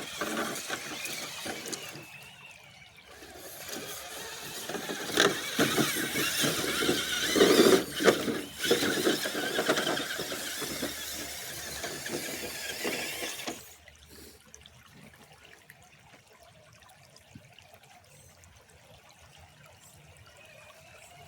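RC rock crawler driving through a shallow stream: its electric motor and gears whining and water splashing around the tires, loudest in the middle and cutting off suddenly about two-thirds of the way through.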